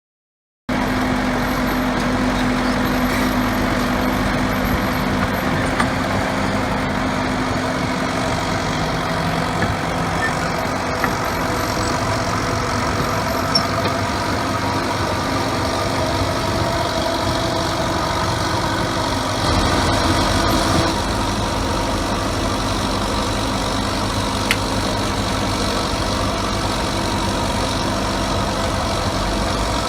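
Bomag 814 LHP-3 asphalt paver's diesel engine running steadily, with a short, slightly louder stretch about two-thirds of the way through.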